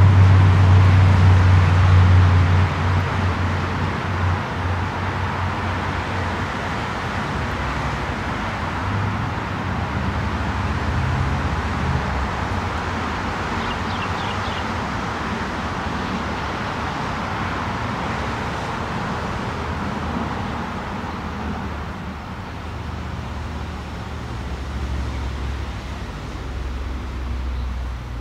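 Steady background noise with a low rumble, loudest in the first couple of seconds and easing slowly after that.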